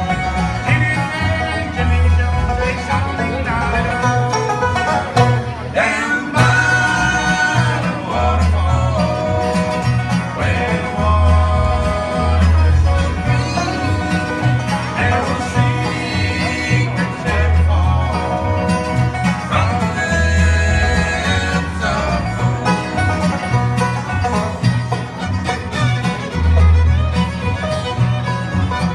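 Bluegrass band playing: banjo, guitar and fiddle over a steady pulsing bass line.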